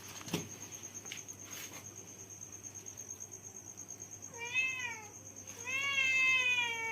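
A cat meowing twice: a short call that falls in pitch about four and a half seconds in, then a longer, louder call just after.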